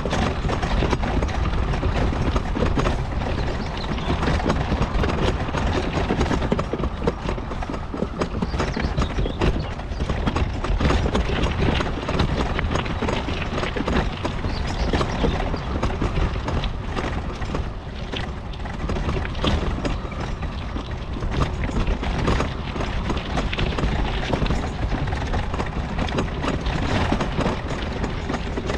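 Mobility scooter riding over a rough track: a constant, dense clatter of small knocks and rattles over a steady low rumble.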